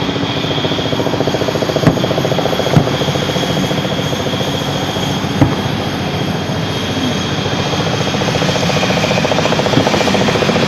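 Fireworks going off in the distance, three sharp bangs about two, three and five and a half seconds in, over a loud steady mechanical drone.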